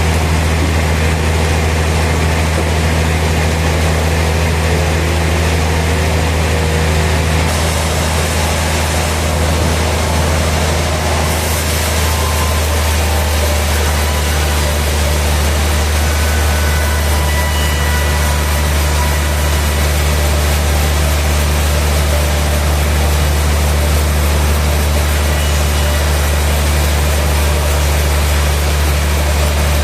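Sawmill machinery running with a steady, loud low drone that holds unchanged throughout.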